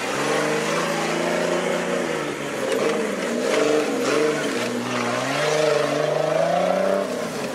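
Off-road buggy's engine revving hard under load, its pitch repeatedly rising and falling as the throttle is worked, with dirt spraying from the tyres.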